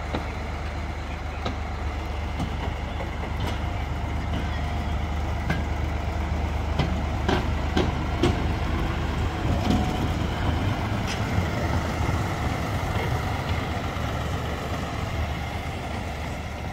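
Miniature railway locomotive moving off and running past with a steady low drone, its wheels clicking and knocking over the rail joints as it passes, then fading as it draws away.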